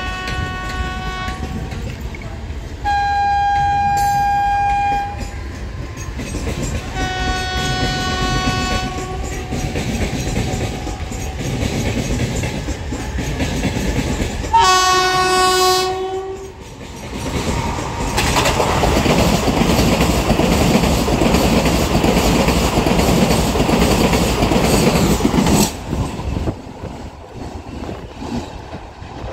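Vande Bharat Express trainset sounding its horn four times as it approaches, the last blast the loudest. It then passes at speed with a loud, steady rush of wheel and air noise for about eight seconds, which cuts off sharply near the end as the train clears.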